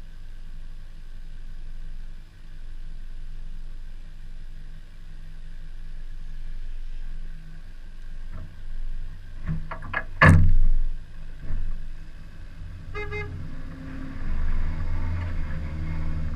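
A car engine running steadily, with a few knocks and then one loud bang about ten seconds in. A short horn toot follows a few seconds later, and the engine revs up near the end.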